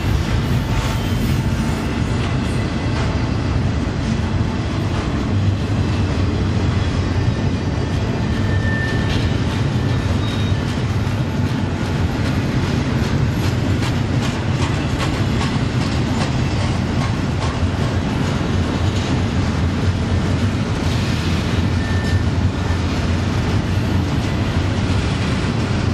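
Double-stack intermodal well cars rolling past at speed: a steady deep rumble of steel wheels on rail with the clickety-clack of wheels over rail joints.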